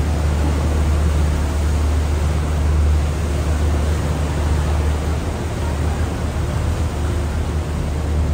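Steady low hum of a sightseeing boat's engine, with an even hiss of wind or water laid over it.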